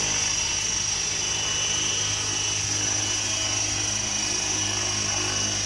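Align T-Rex 700E DFC electric RC helicopter, running on a 12S LiPo, hovering low: a steady high-pitched motor whine over a low rotor hum.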